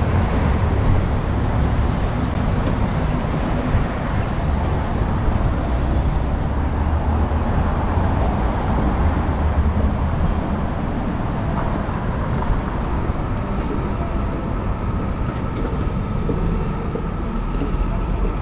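Downtown street traffic: a steady rumble of passing cars and vans, with a faint steady tone joining about two-thirds of the way through.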